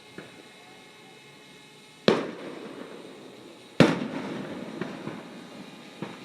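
Fireworks exploding: two loud sharp bangs about a second and a half apart, each followed by a rumble that slowly dies away, with a faint pop just before them.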